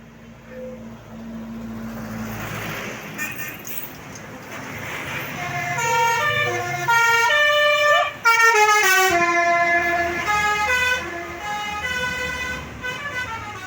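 Tour bus's 'telolet' basuri musical horn playing a quick melody of stepped notes, loudest in the second half. Bus engine and road noise rise before the tune starts.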